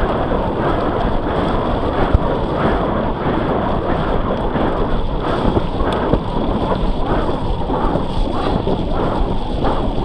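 Mountain bike ridden at tempo along a muddy trail: a steady, loud roar of wind buffeting the on-bike microphone mixed with tyre and drivetrain rumble.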